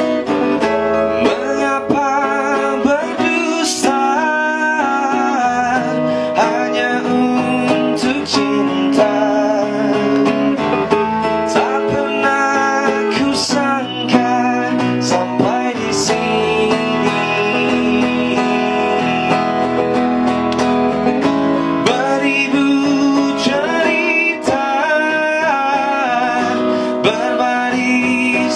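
A male singer singing a melody with vibrato over guitar accompaniment, his voice heard without effects.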